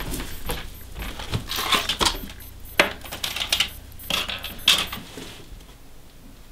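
Small items on a wall shelf being handled, picked up and set down, with several sharp knocks and clatters over a low hum that stops about five seconds in.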